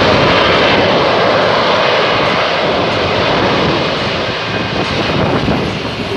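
Military fighter jet's engine noise, loud and steady, as the jet hovers down and sets down in a vertical landing. The noise eases a little over the last couple of seconds.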